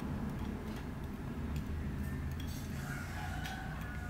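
Faint crackling and popping of minced garlic in hot oil as fish sauce and sugar are poured into the pot, over a steady low hum. A faint drawn-out call rises near the end.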